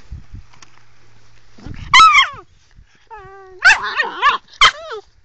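Sloughi puppy barking and whining: a loud high yelp falling in pitch about two seconds in, a thin whine, then a quick run of sharp barks near the end.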